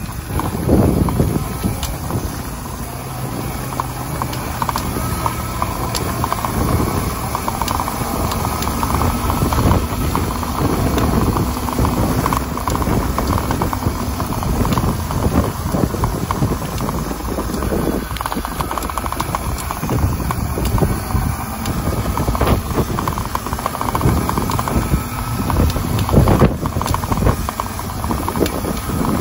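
Small 72-volt electric dirt bike ridden along a bumpy dirt trail: tyre and suspension noise with frequent knocks and rattles over the bumps, and a faint motor whine that rises and falls with speed.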